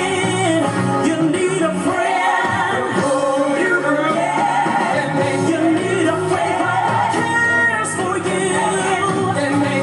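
Gospel song with a sung vocal over band accompaniment; the voice bends and glides through long held notes.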